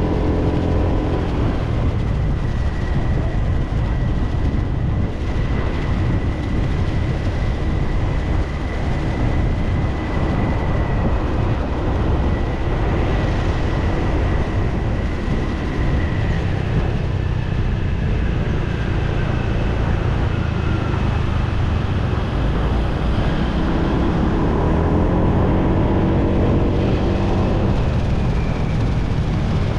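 Motor scooter running under way, with a steady rumble of engine, wind and road noise. A thin high whine holds steady, then slides down in pitch around the middle. Near the end the engine note climbs as the scooter speeds up.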